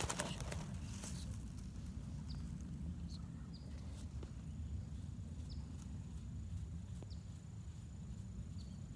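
A bird giving short, high, downward chirps, about six of them at irregular intervals, over a steady low rumble.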